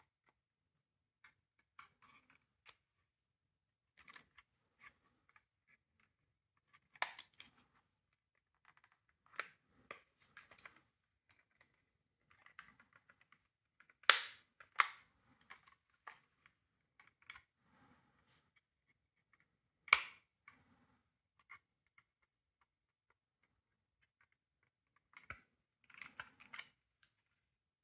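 Irregular clicks and sharp snaps of a smoke detector's housing and parts being handled and pried apart. A few loud snaps stand out among lighter clicks and taps, with short quiet gaps between them.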